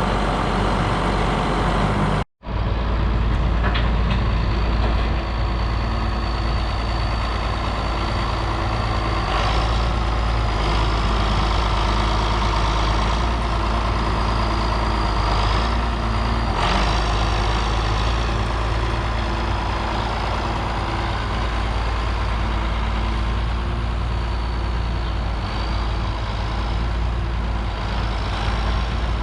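Farm tractor engine running steadily, with a faint high whine above it. The sound drops out for a moment about two seconds in.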